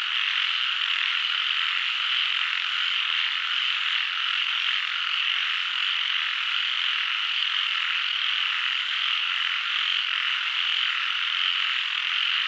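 Chorus of many frogs calling at once. The calls merge into a steady, unbroken high-pitched din with no pauses.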